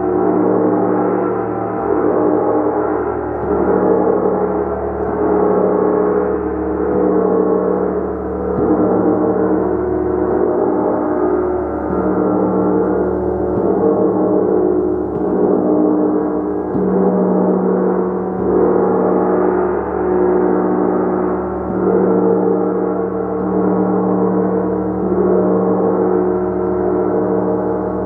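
A gong played continuously with a mallet: a dense, sustained wash of overlapping tones that swells in a steady pulse about every second and a half.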